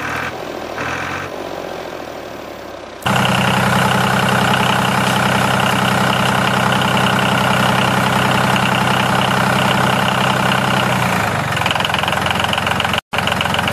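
Tractor engine idling sound, steady and loud, cutting in abruptly about three seconds in, with a brief dropout near the end.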